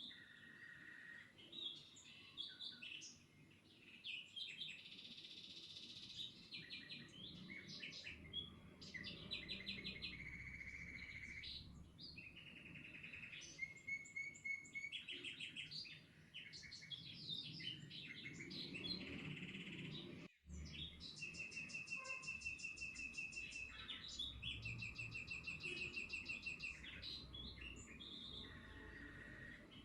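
Several songbirds singing, a mix of chirps, quick trills and rapid runs of repeated notes, with a faint low rumble beneath; the sound cuts out for an instant about two-thirds of the way through.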